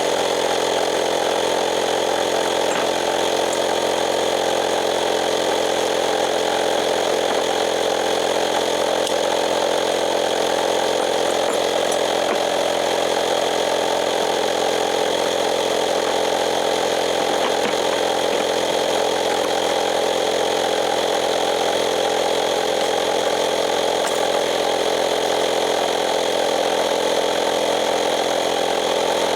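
Portable air compressor running steadily, a constant buzzing motor drone, inflating a freshly plugged tire.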